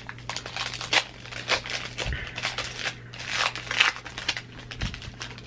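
A plastic trading-card pack wrapper crinkling and rustling as it is handled, with many sharp, irregular crackles.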